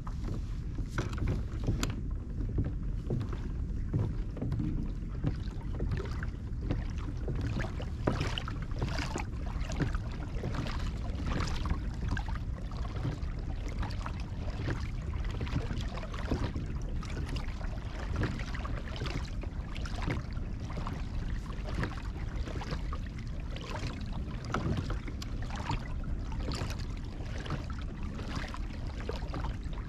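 Water lapping and splashing irregularly against the hull of a moving kayak, over a steady low wind rumble on the microphone.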